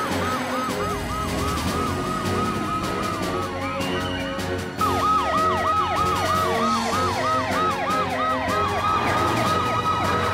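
Cartoon emergency-vehicle sirens wailing in a fast repeating up-and-down pattern over background music. About five seconds in, a louder siren with quick falling sweeps joins, and a slower long rise-and-fall wail runs alongside.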